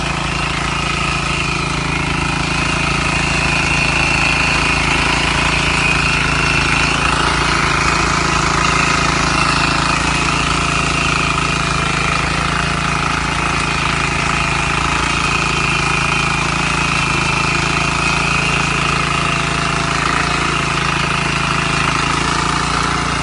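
Engine of a KAAN 53 S rotary tiller (motor hoe) running steadily at an even speed.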